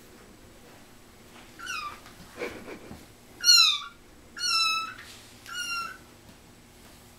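Young kitten mewing four times, short high calls, the second the loudest, with a brief rustle between the first two.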